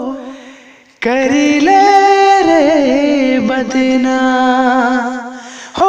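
Nagpuri song music, a melody line of long held notes with slight wavering in pitch. It fades out in the first second, comes back in sharply about a second in, and fades again near the end.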